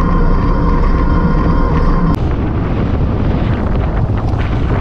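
Wind buffeting the microphone and tyre rumble from a Hiboy P6 fat-tire e-bike riding at speed. A steady whine from its 750 W hub motor cuts off suddenly about two seconds in.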